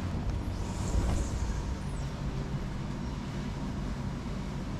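Steady low rumble of background noise, with a brief soft hiss about a second in.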